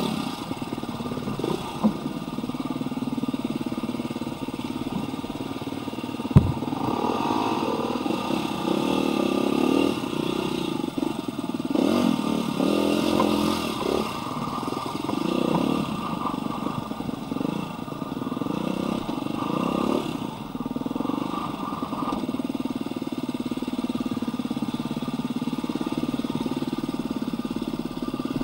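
Husqvarna dirt bike's engine running under way, revving up and down. Two sharp knocks cut through it, a small one about two seconds in and a loud one about six seconds in.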